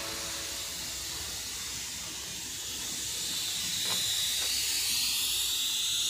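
Gravity-feed paint spray gun on a compressed-air hose hissing steadily. The hiss grows louder and sharper over the last couple of seconds.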